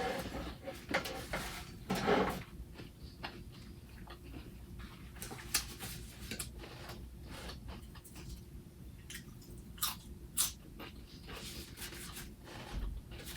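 A person chewing a mouthful of sandwich close to the microphone, with many short, irregular mouth clicks and smacks, busiest about two seconds in.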